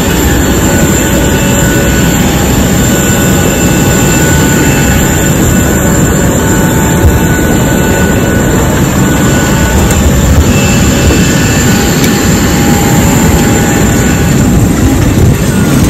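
Jet airliner engine running steadily on the airport apron: a loud, even rush with faint steady whine tones above it.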